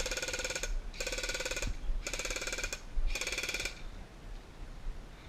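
Airsoft electric gun firing on full auto: four short bursts about a second apart, each a rapid rattle of the gearbox cycling.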